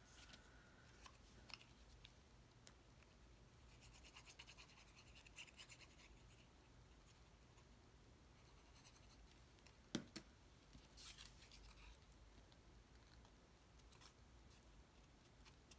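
Near silence with faint scratching and rustling of cardstock pieces being handled and pressed together, and one small click about ten seconds in.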